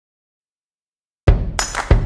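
Silence, then a little over a second in, background music starts abruptly with an upbeat drum beat, the kick and percussion hitting about three times a second.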